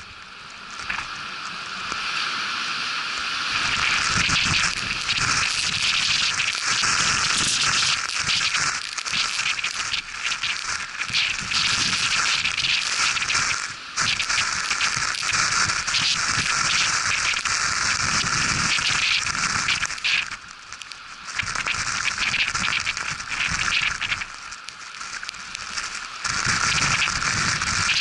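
Blizzard wind driving snow, a harsh crackling hiss that rises and falls with the gusts and briefly eases a few times.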